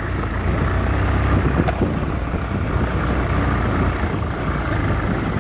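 Motor vehicle on the move: a steady low engine rumble under an even hiss of road noise.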